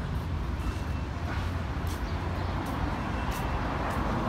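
Steady rumble of city street traffic, with a few short faint clicks.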